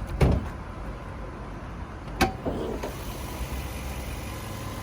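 1998 Lexus SC400's V8 idling quietly in the background, with a thump shortly after the start and a single sharp click about two seconds in, typical of the hood release being pulled and the hood latch letting go.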